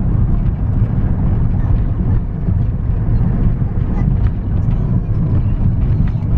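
Steady low rumble of a car in motion, heard from inside the cabin: engine and road noise while driving.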